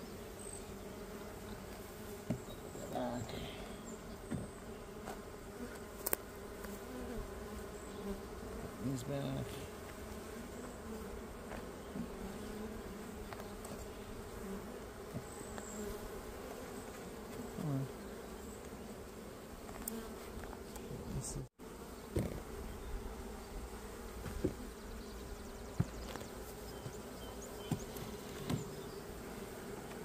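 Honeybees buzzing steadily around an opened hive, a continuous hum from the mass of the colony. Scattered light clicks and knocks sound over it, and the sound drops out for an instant about two-thirds of the way through.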